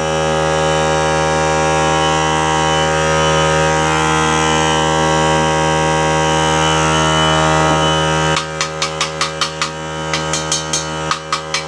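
Small portable air compressor running steadily as it pumps up its tank. About eight seconds in, quick metallic pings start over it, about four a second: the steel tank being tapped, with a hard, clear ping that marks it as sound.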